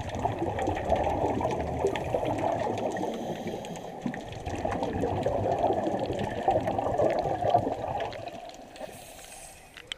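Scuba exhaust bubbles pouring from a diver's regulator, recorded underwater: a dense, continuous bubbling that fades near the end.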